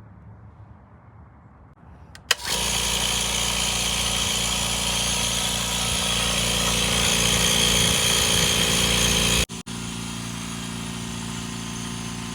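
Compressed air rushing out of a blow gun fed by a Kobalt Quiet Tech 4.3-gallon air compressor, with a steady hum under the hiss. It starts with a click about two seconds in. After a brief break near the end it carries on more quietly.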